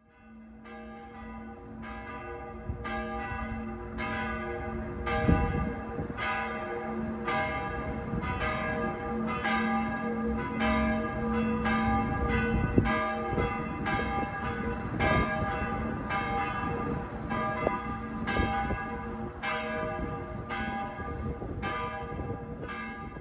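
Church bells ringing: a steady run of overlapping strikes about twice a second over a long, steady hum. It fades in over the first couple of seconds.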